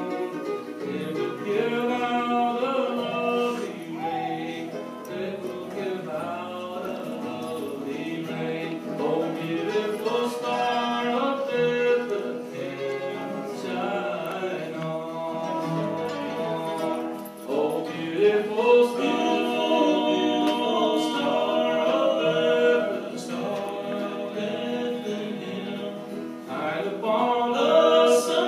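Several voices singing a Christian song together, with guitar accompaniment.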